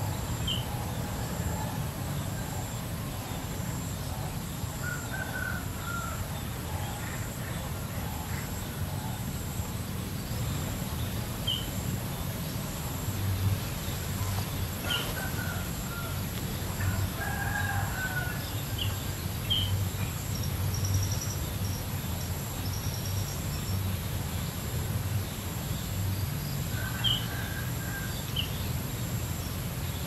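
Outdoor bird ambience: a rooster crowing and scattered short bird chirps, over a steady low rumble and a thin, steady high-pitched tone.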